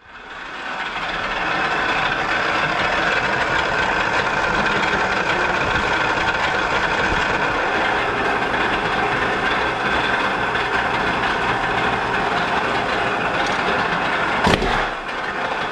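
Clicker die-cutting press running with its flywheel spinning, a steady mechanical hum fading in over the first second or so. Near the end there is one heavy thump as the press head strikes to cut.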